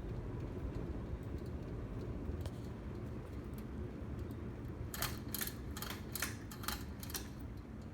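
Craftmade Civic ceiling fan running, with a steady low whir of motor and moving air. About five seconds in comes a quick run of sharp clicks, about eight in two and a half seconds.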